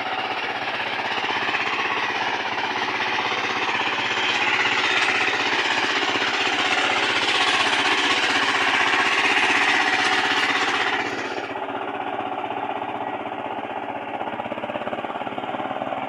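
Kirloskar Mega T15 walk-behind power tiller's single-cylinder diesel engine running steadily under load as it works the soil to form bunds. It is a rapid, even chugging, louder in the middle and dropping back a little after about eleven seconds.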